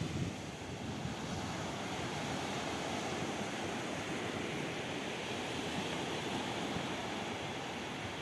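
Steady rushing noise with no distinct events or swells.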